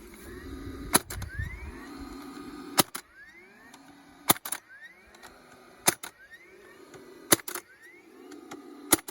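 DeWalt 20 V DCFS950 cordless fencing stapler firing staples into a fence post: six sharp shots about a second and a half apart. Between shots its motor runs, rising in pitch as it pumps pressure back up for the next staple.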